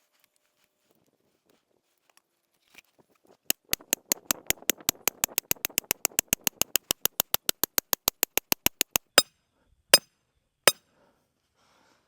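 A steel grounding rod being driven into hard ground. After a pause, a fast, even run of sharp metallic strikes comes at about six a second, followed by three separate heavier blows near the end.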